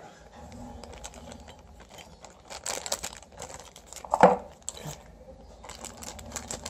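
Thin clear plastic bag crinkling and rustling in irregular bursts as it is handled and opened, with one brief louder sound about four seconds in.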